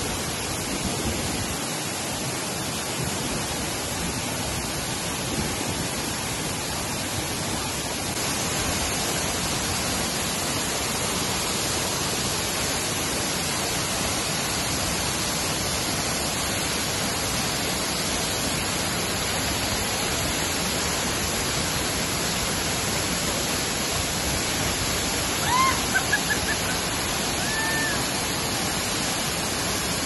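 Steady, dense rush of falling water from a mountain stream waterfall, even and unbroken. A few short high chirps sound briefly near the end.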